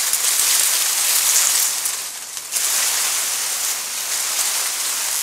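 Miscanthus grass rustling in the wind: a dense, even hiss of leaves brushing together that swells and eases, dipping briefly about two seconds in.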